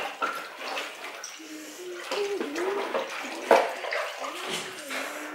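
Kitchen tap running into the sink while dishes are washed, with a sharp knock about three and a half seconds in.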